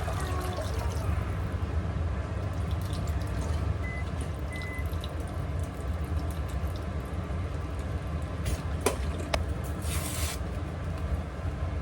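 Kitchen cooking sounds: a steady low rumble with liquid trickling and a few light clicks, and two short high electronic beeps about four seconds in.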